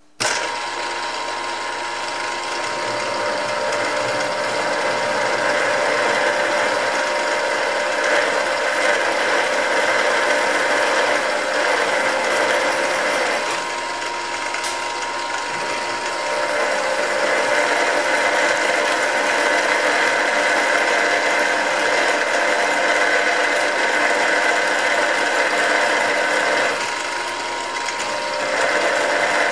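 Milling machine running with a twist drill cutting through a metal plate, a steady mechanical sound with a whine of several held tones. It eases briefly about thirteen seconds in and again near the end.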